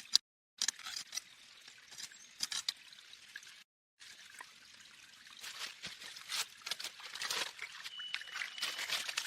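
Water trickling and pouring with small irregular splashes, broken by two brief cuts to dead silence. A faint thin high tone joins near the end.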